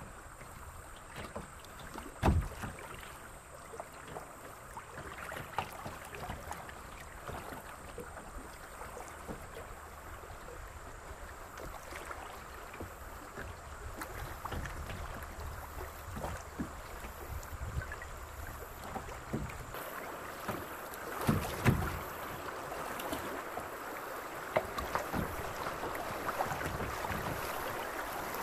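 Kayak paddling on moving creek water: irregular paddle splashes and drips over a steady wash of water. There is a sharp knock about two seconds in and a louder run of knocks and splashes about three quarters of the way through, and the water grows a little louder near the end.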